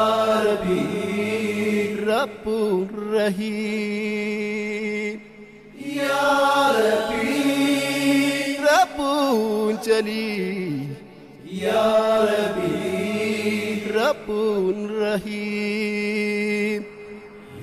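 Wordless vocal chanting of an Islamic nasheed. Long held notes with sliding ornaments come in phrases of about five seconds, with short breaks between them.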